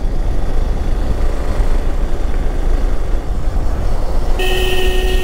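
Steady wind and engine noise from a Hero Xpulse 200 4V motorcycle riding uphill. Near the end a vehicle horn gives one steady blast just under a second long.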